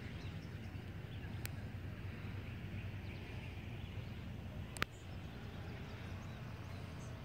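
Outdoor ambience: a steady low rumble with faint bird chirps. Two sharp clicks cut through it, one about a second and a half in and a louder one near the five-second mark.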